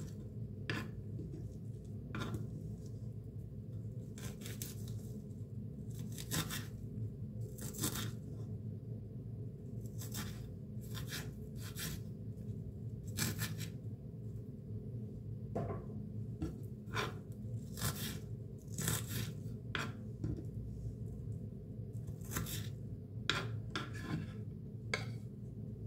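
Chef's knife dicing a peeled onion on a wooden cutting board: irregular crisp cuts as the blade slices through the onion and taps the board, over a steady low background hum.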